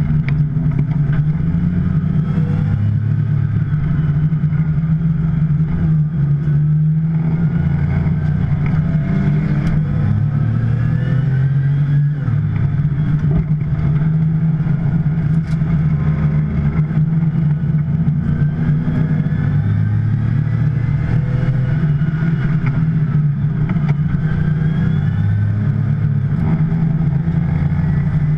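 2010 Porsche 911 Turbo's twin-turbocharged flat-six engine running under way, its note rising again and again as the car accelerates, over a steady low drone.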